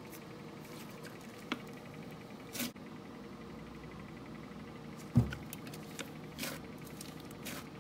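A few scattered light knocks and taps, the loudest a dull thump about five seconds in, over a faint steady hum.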